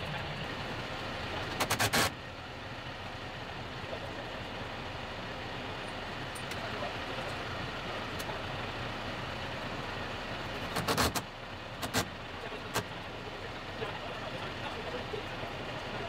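Tractor engine running steadily, with a few sharp metallic knocks or clicks from work on the door: a quick cluster about two seconds in and a handful more around eleven to thirteen seconds in.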